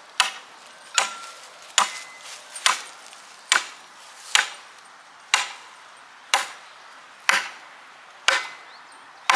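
Hammer blows on wood, struck steadily about once a second, each a sharp crack with a short ring.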